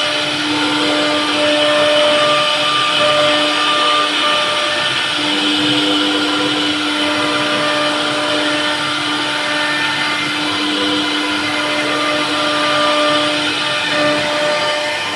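CNC router spindle running steadily with a constant whine as it carves wood.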